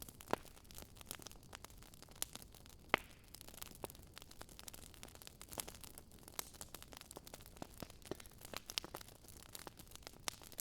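A Swedish fire torch (an upright log split by crosscuts, burning from the inside) crackling and popping irregularly. There are a few sharper, louder pops.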